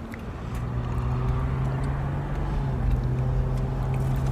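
Car driving, heard from inside the cabin: a steady low engine hum sets in about half a second in, over a constant rumble of road noise.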